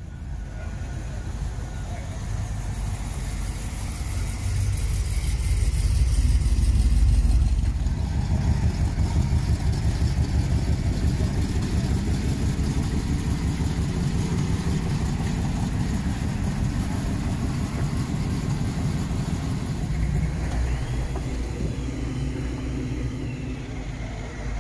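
Classic car engine running with a deep, pulsing rumble. It revs up to a peak about six or seven seconds in, then settles back to a lumpy idle.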